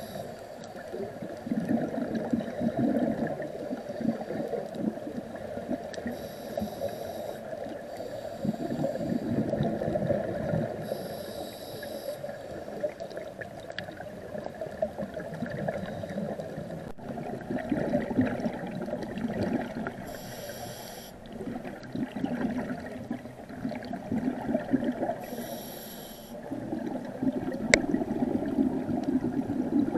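A scuba diver breathing through a regulator underwater. A short hissing inhalation comes about every five seconds, each followed by a long, rumbling, bubbling exhalation. One sharp click just before the end.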